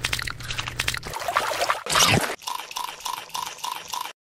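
Wet splashing and squelching sound effects: a quick run of short clicks and splashes, with a stronger splash about two seconds in and a fast regular pulsing near the end.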